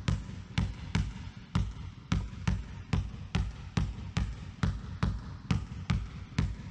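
A basketball dribbled low and fast on a gym court, about three even bounces a second, as she switches it from side to side in front of her feet (windscreen wiper dribbles).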